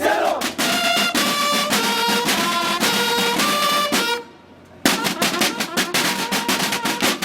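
Military band playing brass and drums: a brass melody in held notes over steady drum beats. It breaks off briefly a little past four seconds in, then comes back with the drums to the fore.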